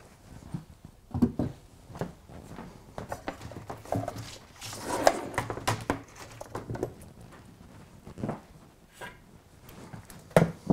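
Scattered knocks and clicks with some rustling as small electronic units are set down on a plywood shelf and a bundle of cables is handled, with footsteps on the floor.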